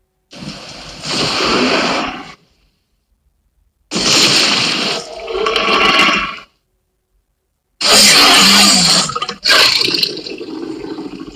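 Jurassic Park Tyrannosaurus rex sound effect: three long, harsh roars, each breaking off into silence before the next, the last one the longest.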